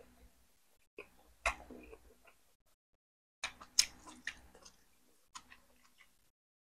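Close-miked chewing of boiled chicken: wet mouth clicks and smacks in three short clusters, about a second in, about three and a half seconds in and about five and a half seconds in, with silence between.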